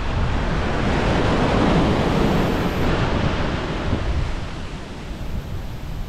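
Ocean surf: a wave breaks and washes up the beach, swelling about a second in and fading away over the last couple of seconds.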